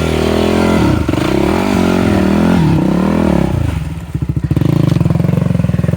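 Dirt bike engine revving up and down several times under throttle, then settling into a steadier, lower pulsing run for the last couple of seconds.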